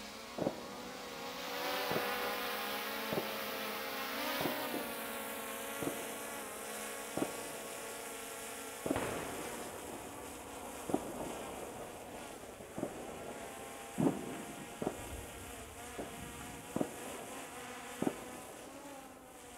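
Small quadcopter drone (DJI Mini 3 Pro) buzzing with a rotor whine that swells around two and four seconds in, then fades as it climbs away. About a dozen sharp, separate firecracker bangs go off every second or so throughout.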